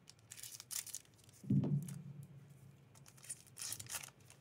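Foil wrapper of a Masters 25 booster pack crinkling and tearing in gloved hands as it is cut and pulled open, with a short low thump about a second and a half in.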